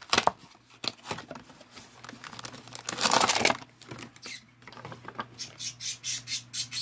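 A nail-strip packet being opened by hand: packaging crinkling, with a longer tearing rasp about three seconds in, then a run of quick, even rustles near the end.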